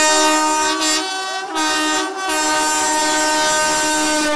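An approaching electric locomotive sounds its horn in one long blast, with a brief break about two seconds in.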